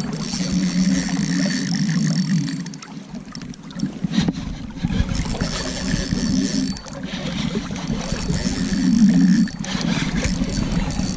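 Spinning reel being cranked in stretches with short pauses, reeling in line against a hooked king salmon. A low rumble joins about four seconds in.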